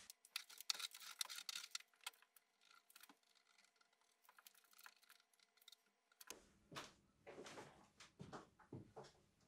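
Faint handling sounds from hands working on a linoleum panel glued to plywood: a quick run of light clicks and taps in the first two seconds, then soft rubbing and rustling from about six seconds in.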